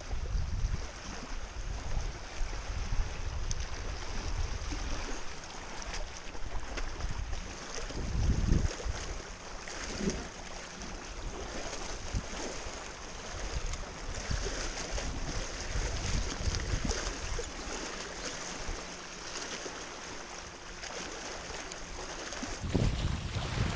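Small waves of choppy lake water lapping and splashing against a rock shore, with wind gusting over the microphone in uneven low rumbles.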